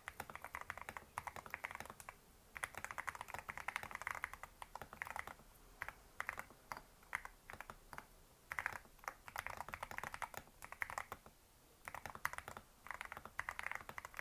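Mechanical keyboard with Rose Panda tactile switches and MDA-profile keycaps being typed on, crisp keystroke clicks in quick runs of a second or two broken by short pauses.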